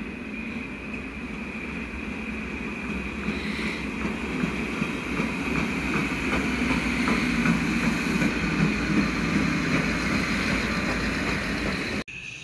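Work train of construction wagons rolling past on the rails, its wheels clicking rhythmically and the rumble growing louder; the sound cuts off abruptly near the end.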